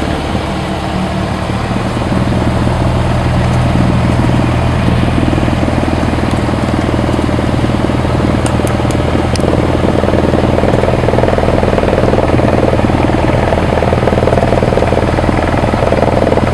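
Cessna 172S's Lycoming four-cylinder piston engine and propeller running steadily at low power, a little louder about two seconds in.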